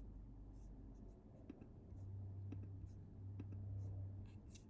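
Faint computer mouse clicks, a few scattered, over a low steady hum that grows louder from about halfway through.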